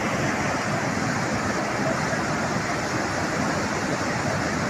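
Muddy flash-flood torrent rushing down a hillside gully: a steady rush of water.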